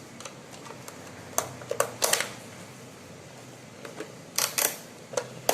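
Sharp plastic clicks and snaps in small clusters as the casing of a Lenovo all-in-one PC is worked open by hand: a few clicks about a second and a half in, a louder cluster around two seconds, and more near the end.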